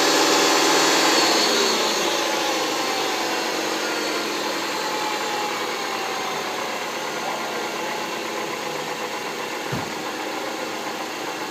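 2010 Ford Fusion's 2.5-litre four-cylinder engine settling back to idle after a rev, its pitch falling over the first few seconds, with a steady whine from its failing alternator. A short low thump about ten seconds in.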